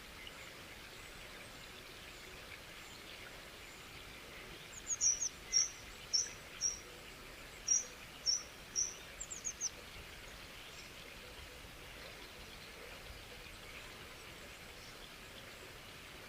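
Steady hiss of running water. About a third of the way in, a bird sings a phrase of short, high, repeated notes, roughly two a second, opening and closing with quick falling trills. The phrase lasts about five seconds.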